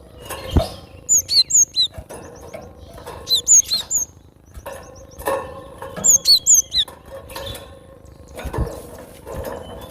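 Cinereous tit (gelatik batu) singing: three bursts of three or four quick, high, down-slurred whistled notes repeated in phrases, with a few dull thumps between them.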